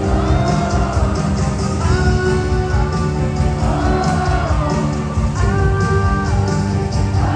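Loud show soundtrack music: a voice singing long, wavering held notes over a steady driving beat and heavy bass.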